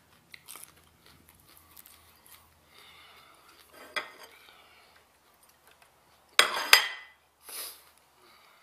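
Chewing and biting into raw habanero peppers, with small crunches and crackles, and a sharp double clack about six and a half seconds in that is the loudest sound.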